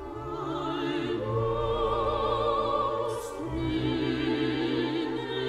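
Operatic singing with a strong vibrato over orchestral accompaniment. A long held note is followed by a new phrase about three and a half seconds in.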